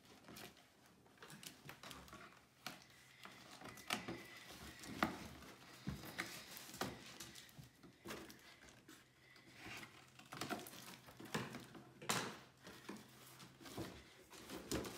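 Cardboard shoebox being opened and handled by hand: irregular light rustles, scrapes and taps of cardboard and paper.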